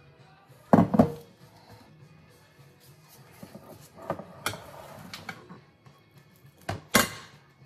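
Kitchen handling sounds over soft background music: a glass baking dish knocked down onto the countertop about a second in, then scattered clinks and knocks as a fork works a bowl of cheese filling, with two sharper knocks near the end.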